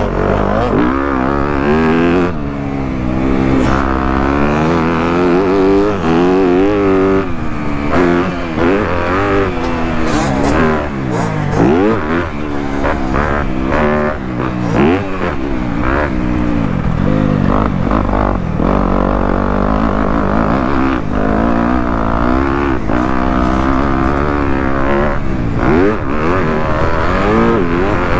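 Motocross bike engine revving hard and falling off over and over as it is ridden around the track, its pitch climbing and dropping every second or two. Short knocks are mixed in, most of them a third of the way in.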